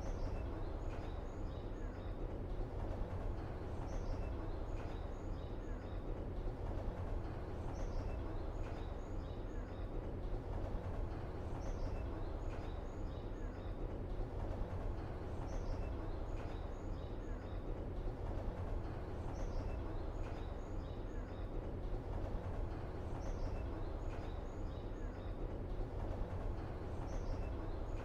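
Steady low outdoor ambience rumble with a cluster of short, high bird-like chirps that recurs about every four seconds, the same each time, as in a looped ambient track.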